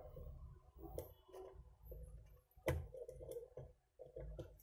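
Faint clicks and taps of multimeter probe tips against the small components of a CCTV camera circuit board, the loudest about two and a half seconds in, over a low hum.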